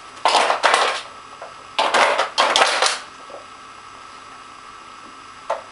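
Hard plastic dog puzzle toy, a Nina Ottosson Dog Twister, clicking and clattering in two bursts, the second longer, as a dog works at its sliders and bone-shaped pegs.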